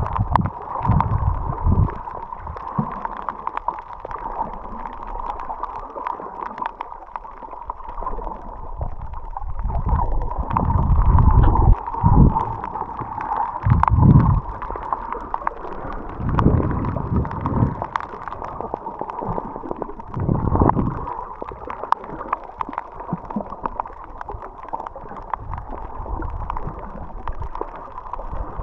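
Underwater sound picked up by a submerged camera: muffled gurgling and low surges of moving water that swell every few seconds, over a steady thin tone.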